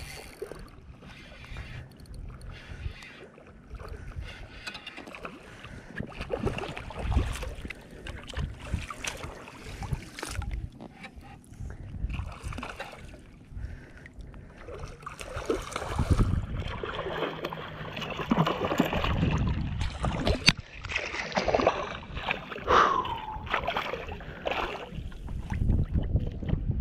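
Water sloshing and splashing around a wading angler and landing net as a hooked sea bass is played close in, the splashing growing busier in the second half.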